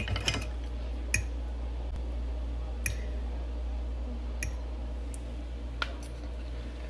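A person eating: five or so sharp little clicks and smacks of fork and mouth, spaced a second or more apart, over a steady low hum.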